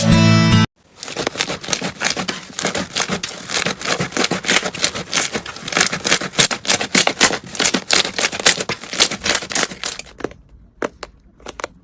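Slime being squeezed and worked by hand, making dense crackling and popping clicks that thin out to scattered clicks near the end. A burst of electronic music cuts off just under a second in.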